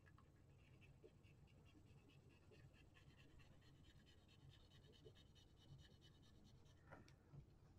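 Faint, rapid scratching and rubbing from hands working over a calculator's keyboard circuit board as it is cleaned, with a sharper click near the end.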